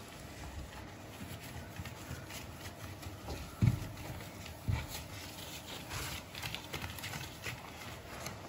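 Cloth rubbed and wiped over ceramic floor tiles by a rubber-gloved hand, with a few soft knocks on the floor, the loudest two about three and a half and four and a half seconds in.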